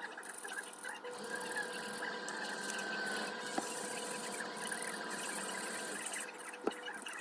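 A small electric motor running steadily with a whine, with a few light clicks.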